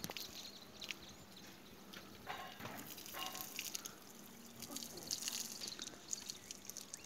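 Faint outdoor ambience with scattered light ticks and drips.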